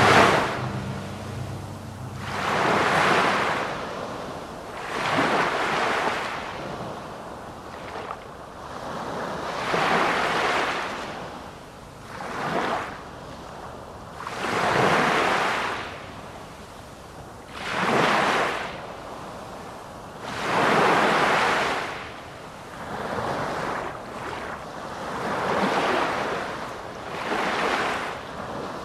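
Sea waves washing onto a shore, each one swelling and then falling away, about every two to three seconds.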